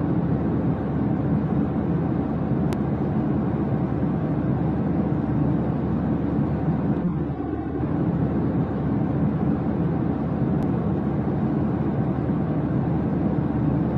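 A steady, low, even rumbling drone with no distinct strokes or tones. It dips briefly about seven seconds in.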